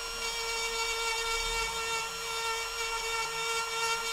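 Bosch rotary tool with a small grinding-stone bit running at a steady high whine while it grinds open resin-filled holes in a fibreglass deck's gelcoat, to give them a key for new gelcoat.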